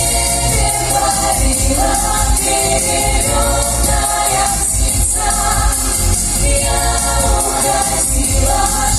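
A vocal ensemble singing in harmony over backing music with a steady, strong bass.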